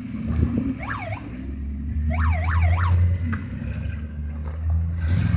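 1995 Ford F-250 flatbed pickup's engine running steadily while it does donuts, with tire squeal that warbles up and down in pitch about a second in and again from about two to three seconds in. A rushing hiss grows louder near the end.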